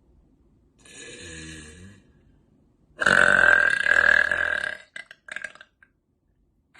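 A woman lets out one long, loud burp lasting nearly two seconds, about three seconds in. It is preceded by a quieter, lower sound about a second in and followed by a few brief short sounds.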